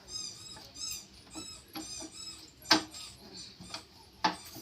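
Repeated short high-pitched chirps, with two sharp knocks about a second and a half apart near the middle and end; the knocks are the loudest sounds.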